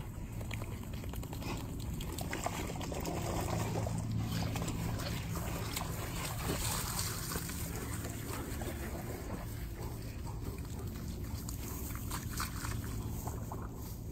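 Wet dogs moving about on grass, with water dripping and trickling off them, over a steady low hum.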